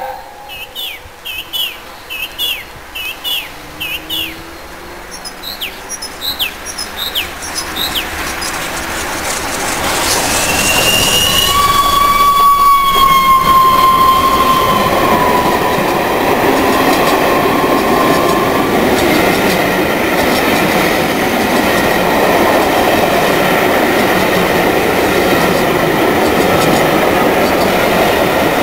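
A1 class steam locomotive 'Tornado' with its train approaches and passes at speed. The noise builds about a third of the way in, with a brief high squeal from the wheels. Then a long rake of coaches rumbles and clatters past over the rail joints, with short high bird chirps before the train arrives.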